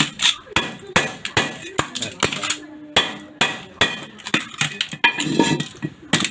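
Repeated hammer strikes with a metallic clink, about two to three a second, knocking at the cement filling inside a cheap 110 V AC mini welding machine.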